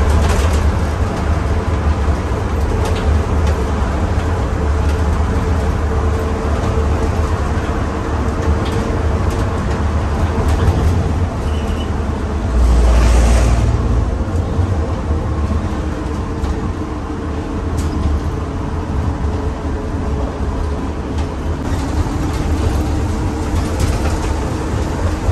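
Cab noise of a Ford delivery van driving at road speed: a steady low engine and road rumble, swelling louder for about a second halfway through.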